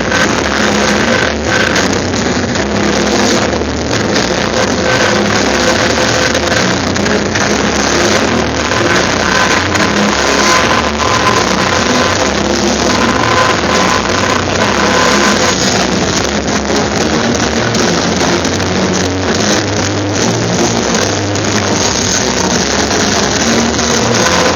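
Music playing faintly under a loud, steady rushing noise.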